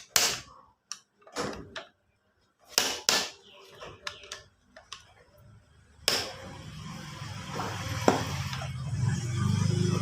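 Sharp metallic clicks and knocks, then from about six seconds a steady low hum from a starter motor, growing louder.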